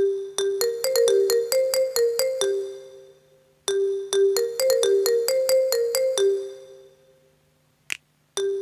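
iPhone-style phone ringtone: a short melody of bright, bell-like electronic keyboard notes that rings out and fades, then starts again about every four seconds. It plays twice and begins a third time near the end, with a brief click just before the third start.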